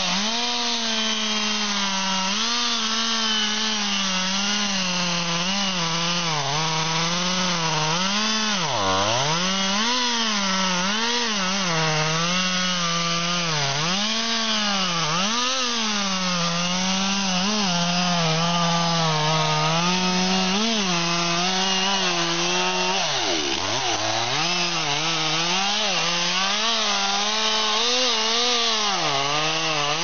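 Two-stroke chainsaw at full throttle sawing through a large tree trunk, its engine note wavering up and down as the chain loads and frees in the wood. The pitch sags deeply twice, about nine seconds in and again past twenty seconds, as the saw bogs down in the cut.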